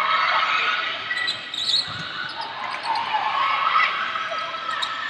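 Indoor volleyball play in a big hall: sneakers squeaking on the hardwood court, a few quick sharp hits, and players shouting as a rally ends in a point.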